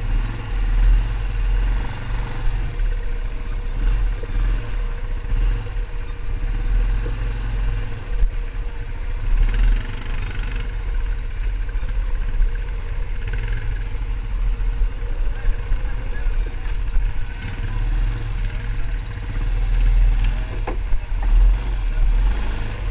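Yamaha ATV engine running as the quad rides over a rough, rocky dirt trail: a continuous low engine rumble with a steady hum, its loudness rising and falling unevenly with the throttle and the bumps.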